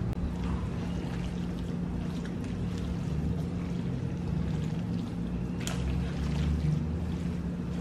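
A spoon stirring shredded chicken salad coated in mayonnaise and cream, a steady wet mixing noise with a few light clicks of the spoon, over a low steady hum.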